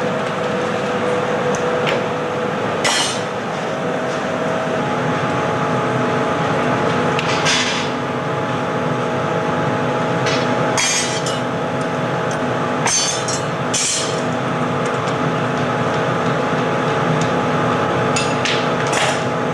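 Steady roar and hum of a hot-glass studio's glory-hole burner and blowers, with about six short clinks of steel tools against the glass spread through.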